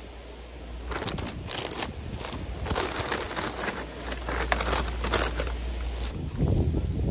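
Paper crinkling and rustling: a kraft paper takeaway bag is opened and a paper-wrapped pastry pulled out and handled in its wrapper. The crinkling starts about a second in and dies away about six seconds in.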